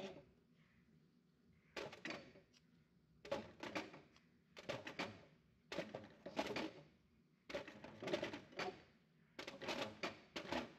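Needle-nose pliers clicking and scraping against a thin aluminium foil pan while small surface-mount parts are picked out of it, in about six short clusters of clicks a second or so apart.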